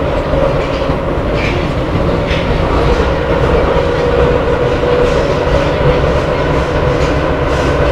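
Budapest M2 metro train running between stations, heard from inside the carriage: a steady rumble with a constant whine and a few faint clicks from the wheels on the rails.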